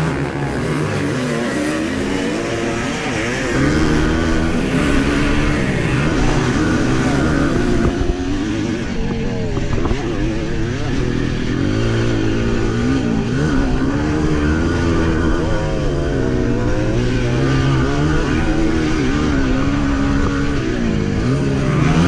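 A 1981 Yamaha YZ250's two-stroke engine revving hard, its pitch climbing and dropping again and again as the bike is ridden through a motocross race.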